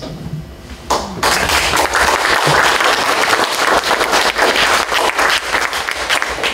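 Audience applauding, a dense patter of many hands clapping that starts about a second in.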